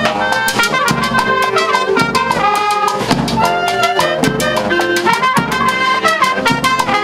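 A wind band of clarinets, trumpets, saxophone and tuba playing a lively tune in a quick, steady beat, with the brass carrying the melody.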